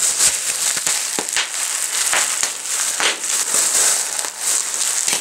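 Bubble wrap being squeezed and twisted by hand: bubbles popping in an irregular run of sharp snaps, with the plastic sheet crinkling in between.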